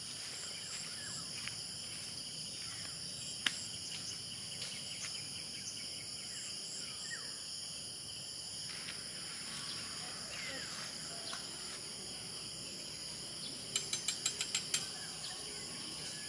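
A steady, high-pitched chorus of insects, with a few faint bird chirps. A single sharp click sounds about three seconds in, and a quick run of about eight clicks comes near the end.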